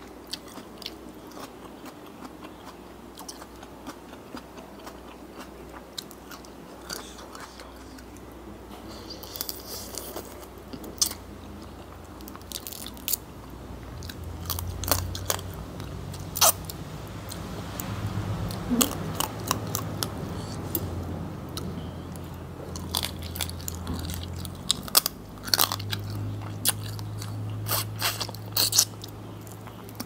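Close-miked eating of a spicy Thai seafood salad: chewing with sharp crunches and wet clicks of the mouth, sparse at first and busier about halfway through.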